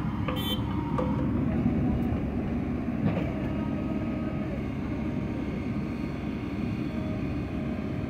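Diesel engines of farm tractors and a tracked excavator running at a steady idle, a continuous low engine rumble, with a brief high-pitched squeak about half a second in.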